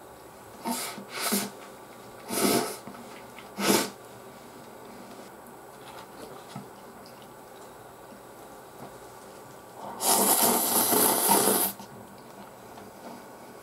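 A person slurping instant noodles: four short slurps in the first four seconds, then one long, loud slurp of nearly two seconds near the end.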